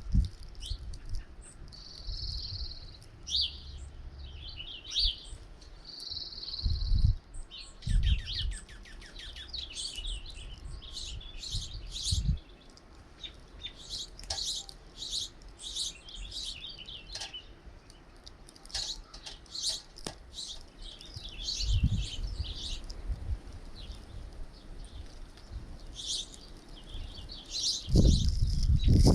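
A flock of small songbirds chirping and calling at a feeder: many quick high chirps, with two drawn-out buzzy calls early on. Low rumbles come and go, strongest near the end.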